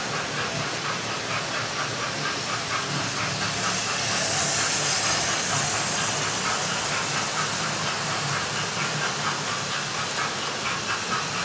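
Several model railway trains running at once: a steady hum of locomotive motors and a fast rhythmic clicking of wheels on the track, with the sound-fitted GWR King locomotive's steam effects and a louder hiss around the middle.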